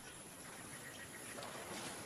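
Faint rainforest background: a steady high-pitched insect drone over a low hush.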